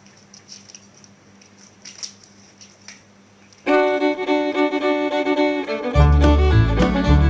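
A few faint clicks, then background music starts abruptly about halfway in, a string-band tune; heavy bass notes join near the end.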